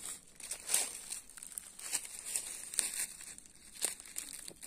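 Footsteps crunching through a thick layer of dry fallen leaves, an irregular run of crisp crackling steps at a walking pace.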